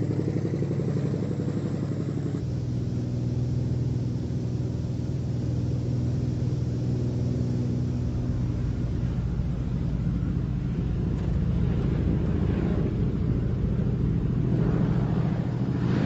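Single-engine floatplane's propeller engine droning steadily as the plane flies and then touches down on a lake. A rushing noise swells over the drone near the end.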